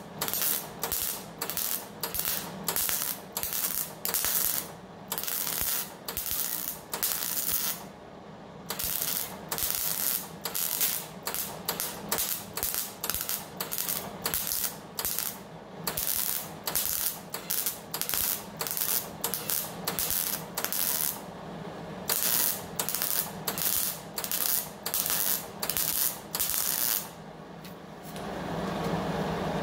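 MIG welder stitch-welding a steel car body seam: short bursts of arc, about two a second, with brief pauses between them. Near the end the welding stops and a steady machine noise comes in.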